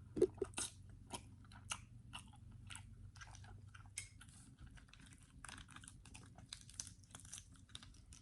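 Close-miked eating of a seafood boil: irregular crunches and clicks of shells and chewing, with a faint steady low hum underneath.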